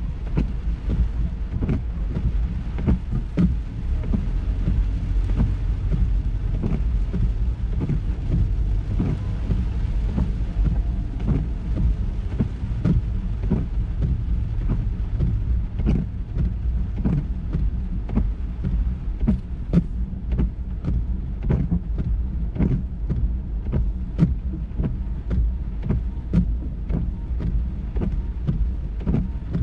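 Ford EcoSport driving on a wet road in the rain: a steady low rumble of road and engine noise, with irregular sharp taps of raindrops hitting the car, several a second.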